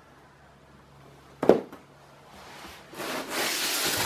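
A single thump, then a long rubbing scrape of cardboard and shrink-wrapped plastic as a boxed diamond painting kit is handled and slid out of its long cardboard shipping box.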